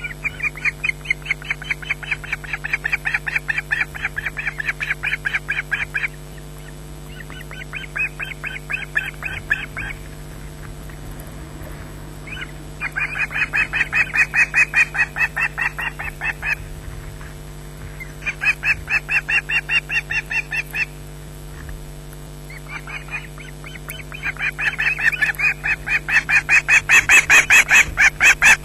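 Ospreys calling at the nest: runs of rapid, high, repeated piping calls, several a second, in five bouts of a few seconds each with short pauses between, the last bout loudest near the end. A steady low hum lies underneath.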